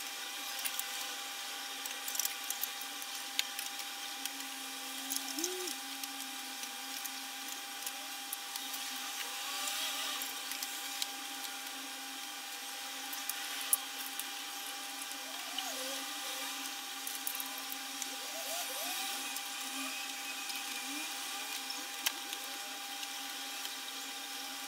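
Hard plastic Habitrail OVO cage parts being fitted together by hand: scattered sharp clicks and knocks, with short squeaks as tubes and connectors are twisted into place, over a steady hum.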